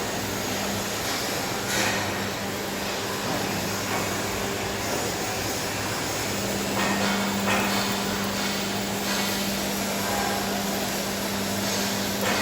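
Steady industrial roar of blast furnace plant machinery, with a constant low hum and a few knocks or clanks.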